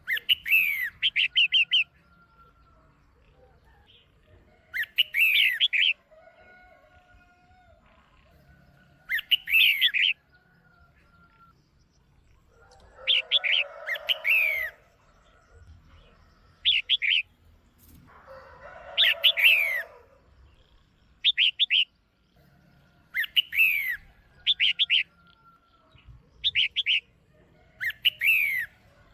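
Red-whiskered bulbul calling in short bursts of quick chirps and sliding notes, repeated every few seconds. The uploader presents these as a female's calls, used to rouse male birds. Twice around the middle a lower, rougher chatter comes with a burst.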